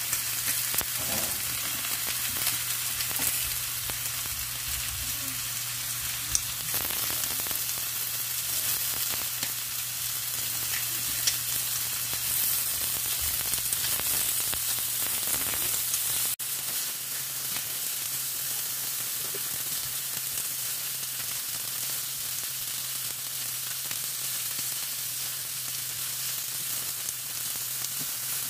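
Slices of pork belly sizzling steadily in a nonstick frying pan, with a couple of sharp clicks.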